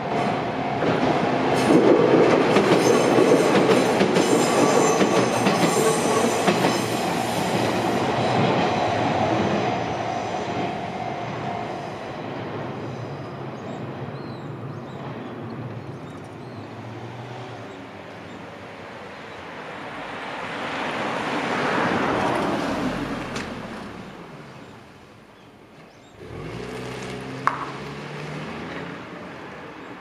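An Izuhakone Railway Sunzu Line electric train passes over the level crossing, its wheels clattering on the rails, while the crossing's warning bell rings steadily. The bell stops about twelve seconds in. Afterwards cars go by on the road, with a sharp click near the end.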